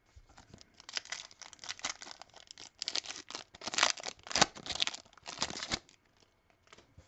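A trading card pack's foil wrapper being torn open and crinkled: a run of ripping and crackling for about five seconds, starting about a second in.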